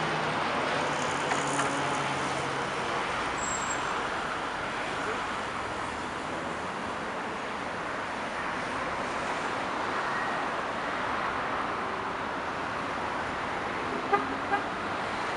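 Steady road traffic noise from cars passing on the street, with a faint engine or horn tone in the first couple of seconds. Two short, sharp knocks come near the end.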